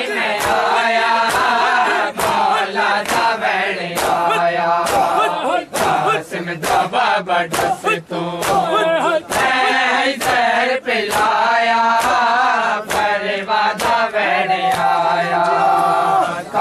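Men's voices chanting a Punjabi noha together, with the crowd beating their chests in matam: sharp bare-hand slaps landing in unison a little under twice a second.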